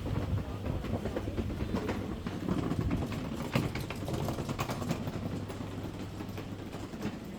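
A motor running steadily, with many irregular clicks and knocks on top that thin out toward the end.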